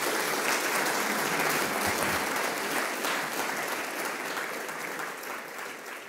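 Audience applauding steadily, the clapping slowly fading toward the end.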